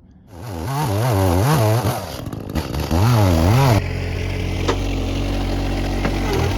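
Chainsaw engine revved up and down several times, then running at a steadier, lower speed from about four seconds in.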